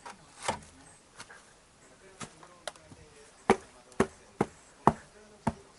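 A series of sharp, irregular knocks or clacks, about nine in all, the loudest coming in a quick run a little past the middle.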